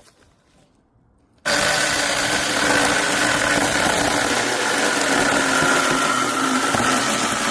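6-inch cordless mini chainsaw switching on abruptly about a second and a half in and running steadily at speed, cutting firewood.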